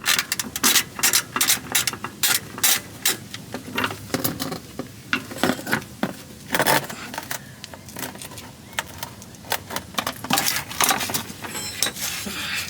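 Hand ratchet clicking in short, uneven runs of strokes as a fastener is worked, with a louder metallic rasp about halfway through.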